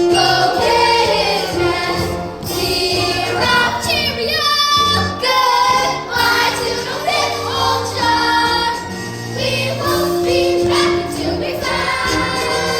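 Young cast singing a chorus number together over instrumental accompaniment.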